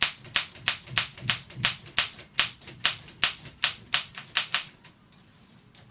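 Olympia SM7 manual typewriter clacking as keys are struck in quick succession, about four strokes a second, stopping about five seconds in.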